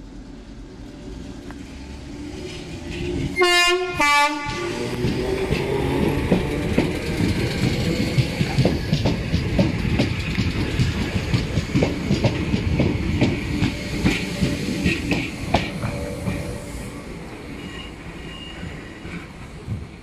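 Merseyrail electric train sounding two short horn blasts, then passing close by with rhythmic wheel clatter over the rail joints. The clatter stays loud for about ten seconds and eases off near the end as the train moves away.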